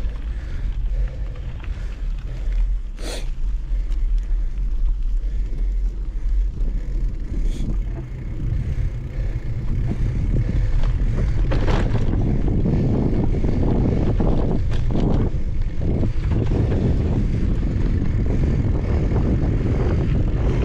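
Mountain bike riding along a dirt trail: a steady low rush of wind on the microphone mixed with tyre noise, and scattered clicks and rattles from the bike. The rumble grows louder about halfway through.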